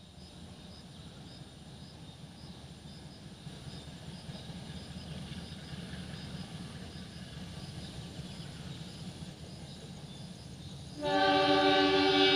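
Pandanwangi passenger train's diesel locomotive approaching, its running a low steady rumble that slowly grows louder. About eleven seconds in, the locomotive sounds one loud horn blast lasting about a second and a half.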